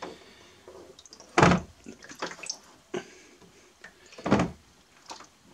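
Two dull knocks, about a second and a half in and again a little after four seconds, with a few lighter clicks between: a darkroom processing tray holding a print in chemistry being handled, the liquid moving in it.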